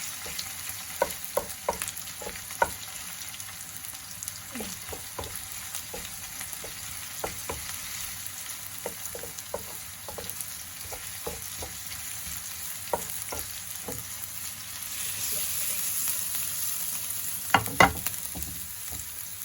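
Garlic and ginger sizzling in hot olive oil in a frying pan, with scattered small pops and crackles. The sizzle swells louder for a couple of seconds late on, followed by two sharp knocks near the end.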